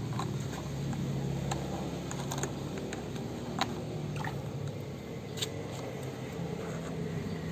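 Hands lathering and scrubbing a wet puppy's soapy coat: scattered small wet clicks and squelches over a steady low hum.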